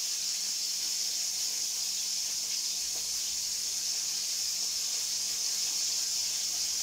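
Oil sizzling steadily in a frying pan as green peppers fry, an even high hiss with faint crackles over a low steady hum.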